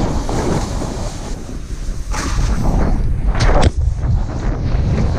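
Wind buffeting the microphone of a body-worn action camera while snowboarding downhill: a steady low rumble and rushing noise, with a few louder rushes about two and three and a half seconds in.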